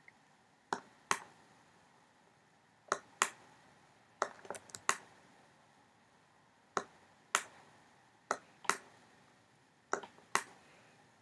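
Computer mouse button clicking, pressed and released in pairs a few tenths of a second apart as each copy of an object is dragged, with a quick cluster of four clicks near the middle.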